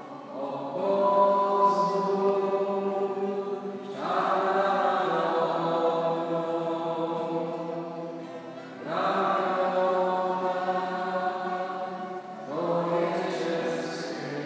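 A group of voices singing a slow church hymn in long held phrases. There are four phrases, each opening with a short rise in pitch before the notes settle and are held.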